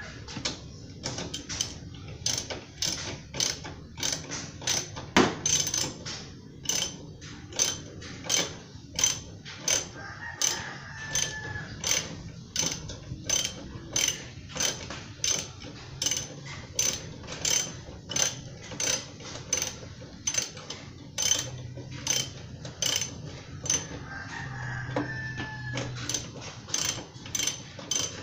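Hand socket ratchet clicking in a steady run of strokes, about two clicks a second, as a fairing bolt is turned. A rooster crows twice faintly behind it.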